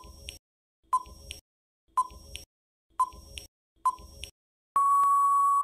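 Countdown timer sound effect: five short beeps about a second apart, then one longer steady beep of the same pitch as the count runs out.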